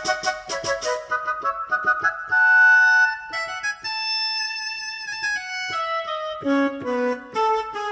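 Yamaha PSR-S970 arranger keyboard playing a melody on one of its voices: a run of quick notes, then held notes, then a falling line of notes near the end.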